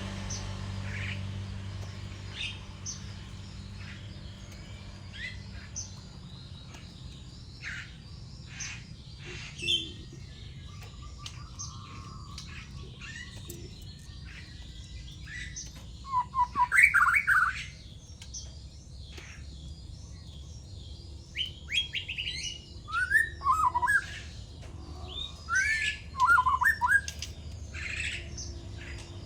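White-rumped shama (murai batu) singing in short, sharp phrases of quick rising and falling notes. The loudest bursts come about 16 seconds in and again around 22 and 26 seconds, with scattered fainter chirps between.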